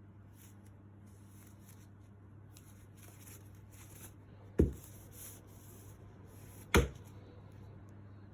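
Light rustling and small clicks of objects being handled, then two sharp knocks about two seconds apart, over a steady low hum.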